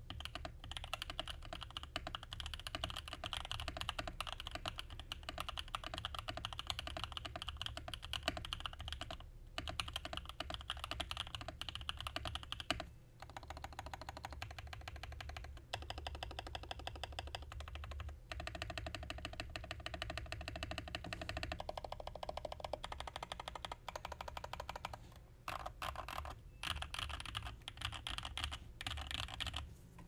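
Mechanical keyboard typed on steadily: a stack-mounted Mode65 aluminium-cased board with lubed Designer Studio White Jade tactile switches on an FR4 plate and PBT keycaps. Rapid, continuous keystrokes with a few short pauses.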